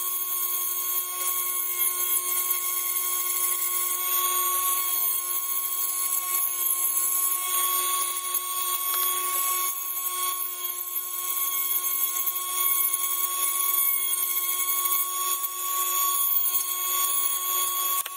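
Handheld rotary tool with a small bit running at steady high speed, a continuous high whine, as it drills and shaves out window openings in a plastic model-kit hull.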